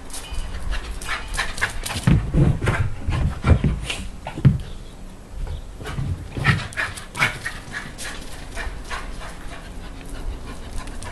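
A dog panting in short, quick breaths, with a few louder low thumps between about two and five seconds in.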